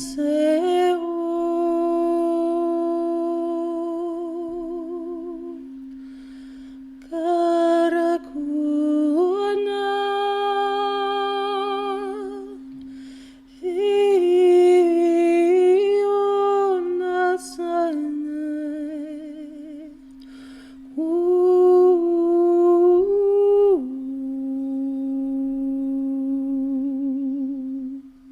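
A woman's voice singing long wordless tones with a wavering vibrato, in sustained phrases of several seconds that step between pitches. Under them a steady drone is held on one pitch throughout.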